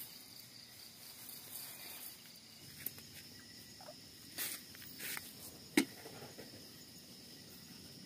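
A steady chorus of crickets, with a few sharp clicks and knocks from a butane gas canister and folding camp stove being handled, the sharpest just before six seconds in.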